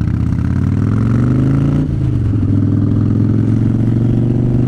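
Harley-Davidson V-twin motorcycle engine pulling up through the revs, shifting up a gear about two seconds in, then running steady.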